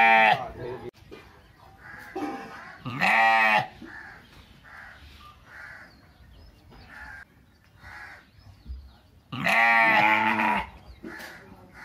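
Sheep bleating: three loud bleats, one at the start, one about three seconds in, and a longer one near the end.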